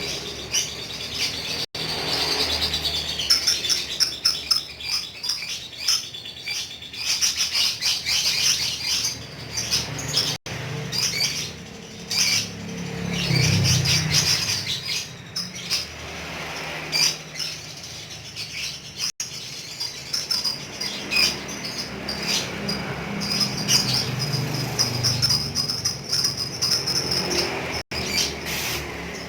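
Lovebird chattering in long, rapid, high-pitched trills, the continuous 'ngekek' song that keepers prize.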